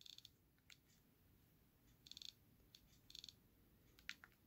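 Faint rapid ticking from a 7th-gen iPod Classic's built-in click-wheel clicker as a thumb scrolls the wheel, in three short bursts with single ticks between them, and a sharper single click about four seconds in. The repaired click wheel is registering input again.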